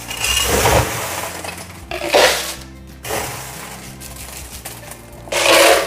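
Ice cubes clattering as they are scooped with a cup and tipped into a plastic blender jar, in three short bursts: near the start, about two seconds in, and near the end.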